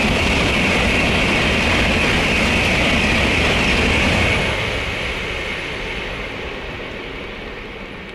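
N700-series Shinkansen bullet train passing at high speed: a loud, steady rushing noise that holds for about four and a half seconds while the cars go by, then fades away as the train recedes.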